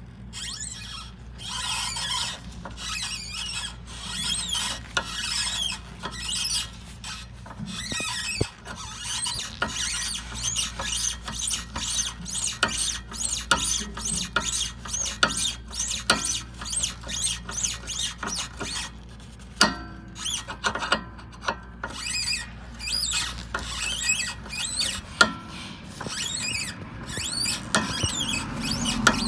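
Repeated short squeaks and creaks from a car's stabilizer (sway bar) link, about one to two a second, over a steady low hum: the abnormal noise of a faulty stabilizer link.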